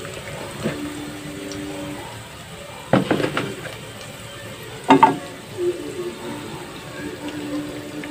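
Chopped garlic sizzling in oil in a stainless steel pot while a spatula stirs it, with sharp clatters about three and five seconds in as the spatula knocks against the pot.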